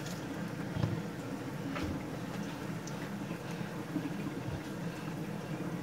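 Hands working shampoo through wet hair, a soft wet handling sound with a few faint clicks, over a steady low background hum.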